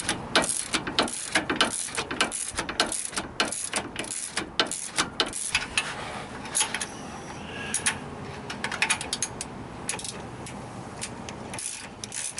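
Hand ratchet clicking in quick back-and-forth strokes as a nut is run down on a truck's steering stabilizer mounting bolt. The clicks thin out briefly about halfway through, then pick up again.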